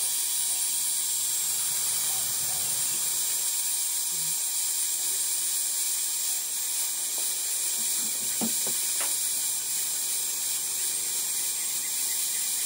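Power sander running steadily, an even hiss with a thin high whine, sanding a cedar lid insert down to a traced line.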